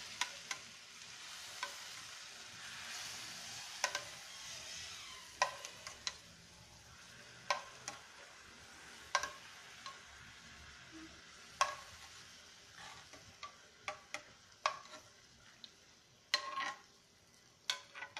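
Hot sauce sizzling as it is spooned over chicken in a pre-heated pan, the hiss strongest in the first few seconds and then fading. A metal spoon clinks against the saucepan every second or two as it scoops.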